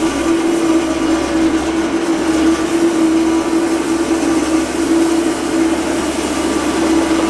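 Small construction-equipment engine running steadily at a constant speed, with a strong droning note and mechanical clatter.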